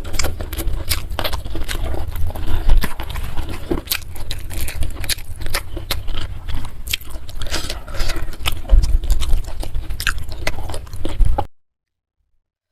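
Close-miked chewing and mouth sounds of a person eating, with many small crunchy, wet clicks over a steady low rumble. The sound cuts off suddenly about a second before the end.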